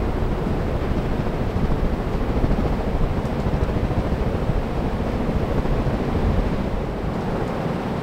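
Many ceiling fans running at once: a steady rush of moving air with low buffeting from the fans' downdraft on the microphone.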